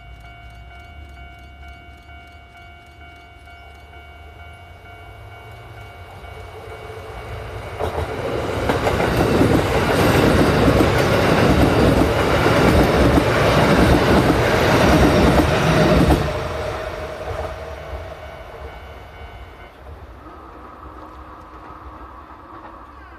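Level crossing alarm ringing steadily while a Kintetsu 5800 series electric train approaches and passes. The train's rumble and wheel clatter build from about eight seconds in, stay loud for about eight seconds, and fall off sharply as the last car clears. The crossing alarm stops a few seconds later.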